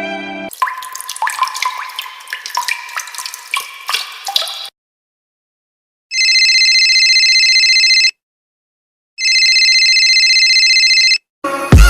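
Water dripping in quick pitched plinks for about four seconds, then, after a short silence, a telephone ringing twice, each ring about two seconds long with a second's pause between.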